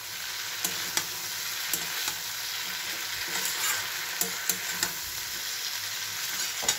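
Potatoes, brinjal, small puti fish and onion flower stalks sizzling in oil in a metal kadai while a metal spatula stirs them. The spatula scrapes and knocks against the pan several times over the steady frying hiss.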